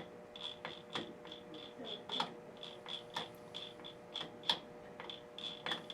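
Combination dial of a vault safe being turned by hand, giving a steady run of light ticks, about three or four a second, with a few louder clicks among them. A steady low hum lies underneath.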